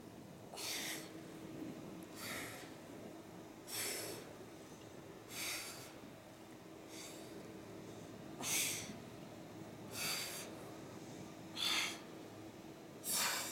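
A woman's sharp, forceful exhalations through the mouth, one with each crunch, about every second and a half, as she works through a set of abdominal crunches.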